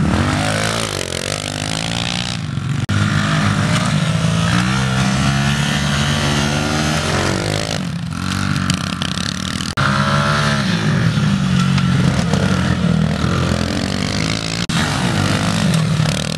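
Small single-cylinder four-stroke pit bike engines, a Kawasaki KLX110 and a Honda pit bike, revving hard and easing off as they ride around a grass track, the pitch rising and falling over and over. The sound breaks off abruptly for a moment several times.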